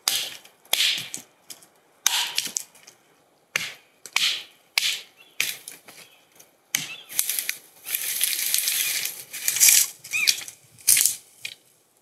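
Dry fallen pine branches and twigs crackling and snapping as they are handled and stepped on, in short separate bursts, with a longer stretch of rustling brush from about seven to nine and a half seconds.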